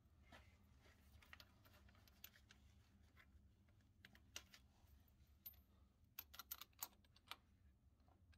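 Faint, scattered clicks and light taps from hands handling the hoses and fittings around a scooter's engine, with a quick run of sharper clicks about six to seven seconds in, over a steady low hum.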